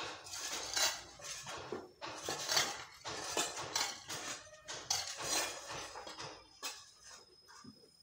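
A hoe chopping and scraping into soil mixed with rocks: repeated gritty scrapes with metallic clinks, about one stroke a second, dying away near the end.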